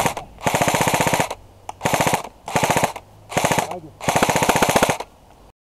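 Airsoft rifle firing several short full-auto bursts of rapid, evenly spaced shots, the last burst the longest; the sound stops abruptly near the end.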